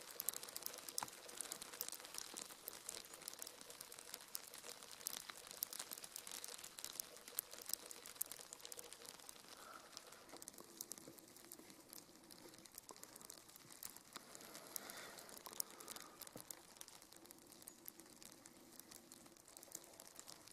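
Falling snow pattering faintly on snow-laden conifer branches and snowy ground: a dense spatter of tiny irregular ticks over a soft hiss.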